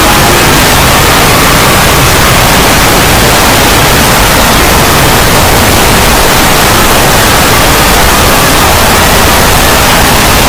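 Extremely loud, heavily distorted and clipped audio that comes across as a steady wall of harsh noise at full volume: a deliberately overdriven meme sound effect.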